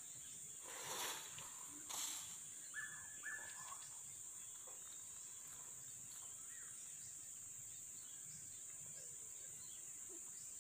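Rainforest insects droning steadily at a high pitch. About one and two seconds in come two brief louder noisy sounds, followed by a few short whistle-like calls.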